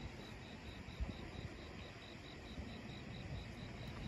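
A cricket chirping steadily and faintly, a high-pitched pulse repeating about five times a second.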